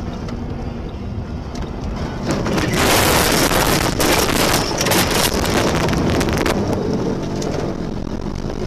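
Car driving on a snowy road, then from about two seconds in a loud rushing noise with many small knocks as the car ploughs off the road into deep snow, snow spraying over the windshield. The rush lasts about four seconds, then eases.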